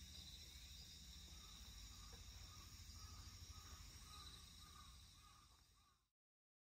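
Faint insects chirring steadily in high, even tones, with a soft repeated lower note in the middle, fading out to silence about six seconds in.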